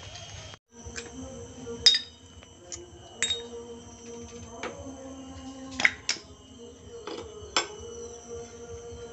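Sharp metallic clinks as the clutch assembly of a Yamaha Vega ZR motorcycle engine is worked off its shaft by hand, about six over the span, the loudest about two seconds in and near six seconds. Soft background music runs underneath.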